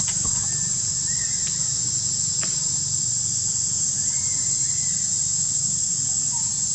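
Steady high-pitched buzz of an insect chorus, with a few faint short chirps over it.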